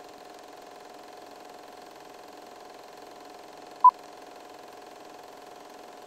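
Film projector running as a countdown-leader sound effect, a steady whir, with one short, high beep about four seconds in: the '2-pop' sync beep that marks the 2 of a film countdown.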